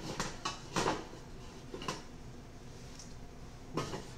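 Kitchen clatter: a few separate knocks and clinks of utensils or cookware being handled, the loudest about a second in and another near the end.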